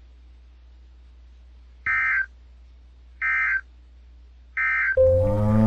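Emergency Alert System end-of-message signal: three short, equal, buzzy data bursts about a second and a half apart, the digital code that closes an alert. Near the end a louder pitched sound with a steady tone cuts in as the next recording starts.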